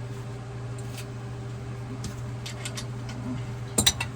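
Light clicks of metal tools and fittings being handled, ending in one sharp clink near the end, over a steady low hum.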